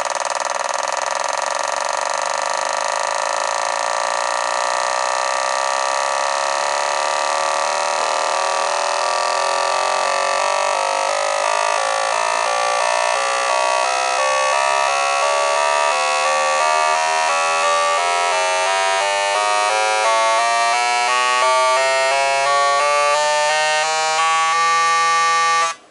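Four gasoline fuel injectors from a Renault K4M 1.6 16v engine buzzing as a test bench fires them in rapid pulses during an auto-check that simulates acceleration. The buzz climbs steadily in pitch as the pulse rate rises, then cuts off suddenly near the end.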